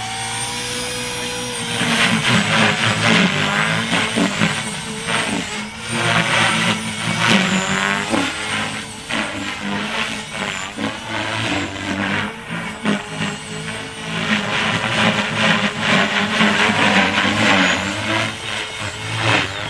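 Align T-Rex 450 Pro electric RC helicopter flying 3D manoeuvres, its HK-2221-6 brushless motor and rotor blades running hard. The rotor noise surges and eases over and over as the pitch changes, getting much louder about two seconds in.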